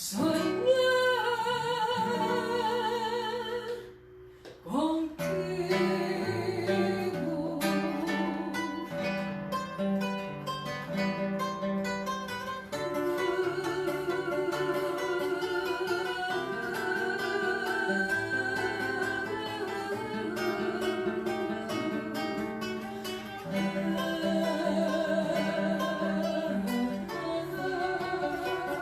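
Acoustic guitar accompanying a singer with a wide vibrato in a live song performance. A short break in the sound comes about four seconds in, then guitar and voice carry on.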